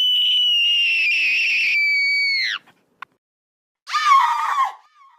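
Two screams, sound-effect style. The first is a very high-pitched shriek held steady for about two and a half seconds, stepping down slightly partway and falling off at the end. After a brief click, a shorter, lower scream comes about four seconds in.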